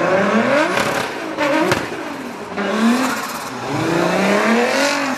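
Four-rotor rotary engine of a Nissan GT-R (R35) drift car revving up and down again and again as it drifts, with tyres squealing.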